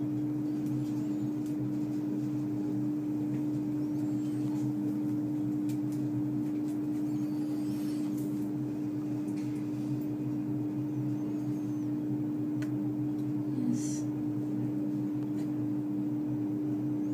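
Steady low electrical hum with one constant tone, with a few faint, brief crackles on top, the clearest near the end.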